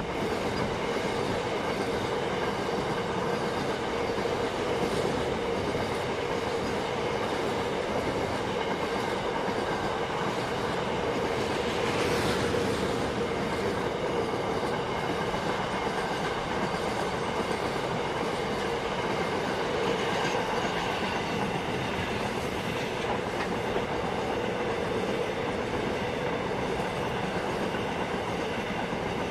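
Container freight train's wagons rolling past close by: steady noise of the steel wheels running on the rails.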